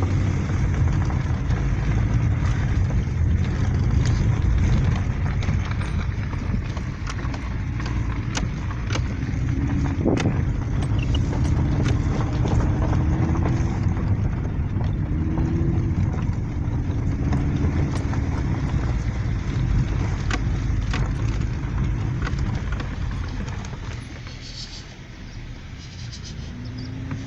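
Car driving, heard from inside the cabin: a steady low rumble of engine and tyres on the road, with scattered sharp ticks through the middle, easing off a little near the end.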